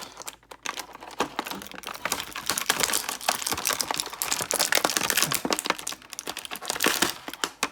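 Thin plastic blister packaging crinkling and crackling in a dense run of small clicks as action-figure accessories are handled and pulled from their tray.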